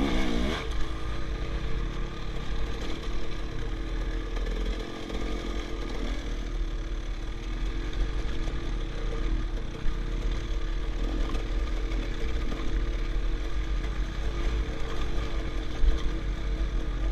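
KTM enduro motorcycle engine running under throttle on a rough dirt trail, its pitch rising briefly as it revs at the start, then steady, with a strong low rumble underneath.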